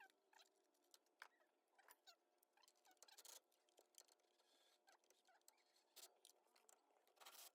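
Near silence, with faint scattered clicks, small chirps and two brief hissy bursts, about three seconds in and near the end.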